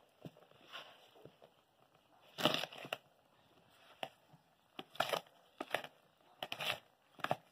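A spatula stirring thick cake batter by hand in a plastic bowl: irregular scraping and squishing strokes, the loudest about two and a half seconds in and a cluster more in the second half.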